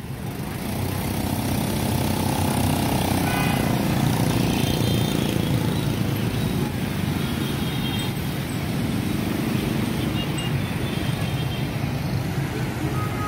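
Dense motor-scooter and motorcycle traffic passing, a continuous steady drone of many small engines, with a few brief high-pitched tones over it.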